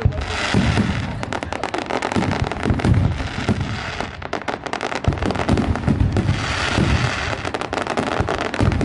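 Fireworks going off without pause: a dense run of rapid cracks and pops over repeated deep booms.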